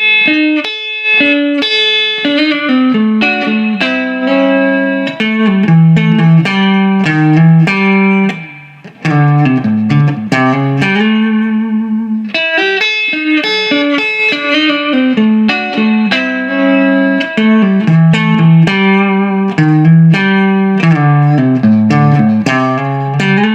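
Electric guitar playing a fast country chicken-pickin' lick, hybrid-picked with pick and fingers. The phrase is played twice, with a short break about nine seconds in.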